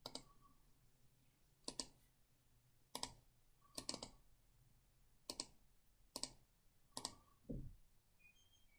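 Faint, sharp clicks of a computer mouse, each a quick double tick of button press and release, about seven in all spaced roughly a second apart, with a duller thump near the end.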